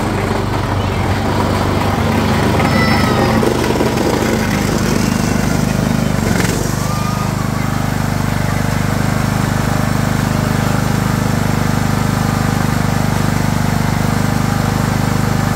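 2006 Craftsman YS4500 lawn tractor's engine running steadily as the tractor plows up the driveway. A little after six seconds there is a short knock, and the engine settles into an even idle as the tractor stands still.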